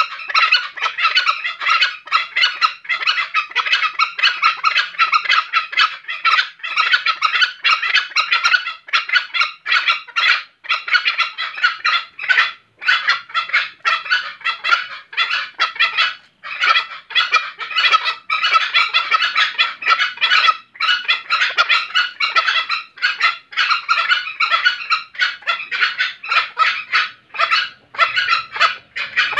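Green junglefowl giving its breeding-season call: a dense, continuous chatter of rapid high call notes with only brief breaks.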